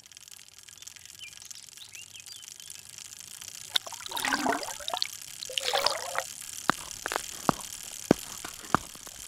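Water trickling and pouring, with two louder gushes in the middle. Near the end, sharp ticks begin at a steady pace, about one every two-thirds of a second.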